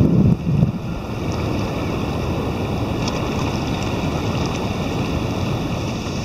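Wind buffeting the microphone, heaviest in the first second, over a steady wash of surf breaking in the distance.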